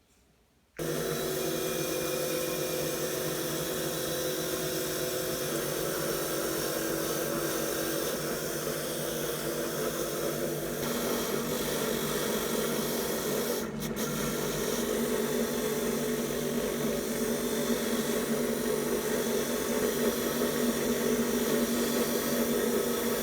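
Power tool running steadily: a motor hum under a rough, continuous scraping hiss of abrasive work on metal. It starts suddenly about a second in.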